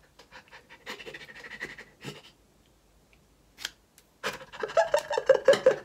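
Small scissors snipping and scraping through a paper cutout, then, about four seconds in, a man breathing hard and fast in short voiced pants.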